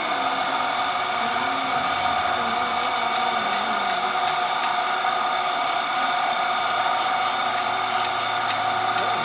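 Manual lathe running with a steady whine while a tool scrapes and cuts a spinning metal roller, giving a hissing scrape that swells and eases every second or so.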